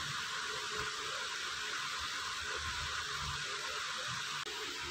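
Steady hiss of recording background noise with faint low rumbling: room tone, no distinct sound.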